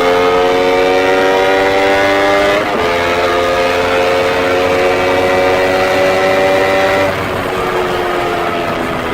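2017 Honda CBR250RR's parallel-twin engine through a Proliner TR-1 short full-system exhaust, pulling up through the revs with a quick upshift about three seconds in. The pitch climbs again, then the throttle closes about seven seconds in and the note sinks as the bike rolls off.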